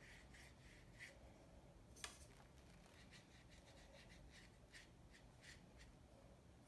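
Faint, repeated strokes of a watercolour paintbrush on paper, with one light click about two seconds in.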